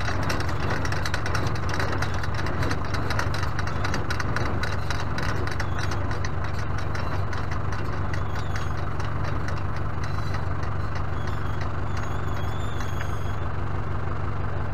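Tractor engine idling steadily beside a hitched small square baler, with a fast, fine clatter over it that thins out about halfway through.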